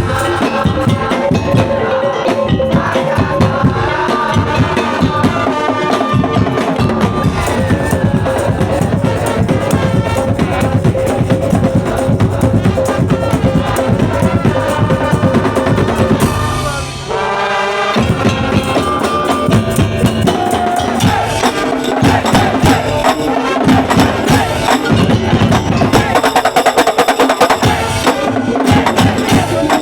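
Madurese daul (tongtong) ensemble playing: dense drum and wooden slit-drum beats with a melodic line over them. The music drops briefly about halfway through, then picks up again.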